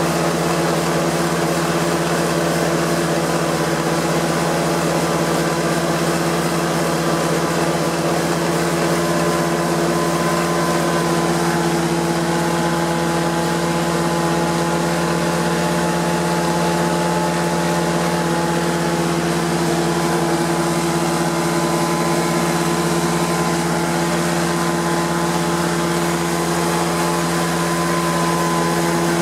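Prochem Performer 405 truck-mount carpet cleaner running steadily: its Nissan A15 engine driving the Sutorbilt vacuum blower and Cat pump, giving a loud, even drone with a strong low hum. The unit is working under load, with the pump at about 500 psi and the blower pulling vacuum.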